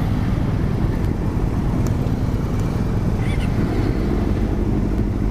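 Several motorcycle engines, the camera bike's Yamaha R6 among them, running steadily at low revs in a line of stopped or slow-moving bikes.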